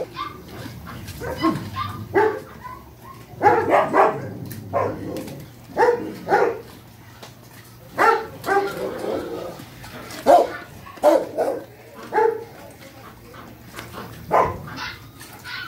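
Dogs barking repeatedly, short sharp barks coming about once a second at irregular intervals.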